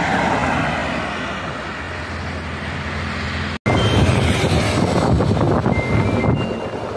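A van driving past on the road, its tyre and engine noise fading away; after a cut, a tractor's engine running steadily with a deep drone, heard from close behind as it hauls a trolley loaded with sand.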